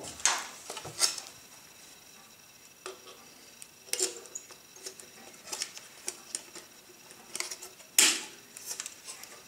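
Sharp plastic-and-metal clicks and knocks as a 120 film spool with 616 spool adapters is pressed into the film chamber of an old Kodak folding camera, with handling of the camera body and back. The loudest clicks come at the start, about four seconds in and about eight seconds in.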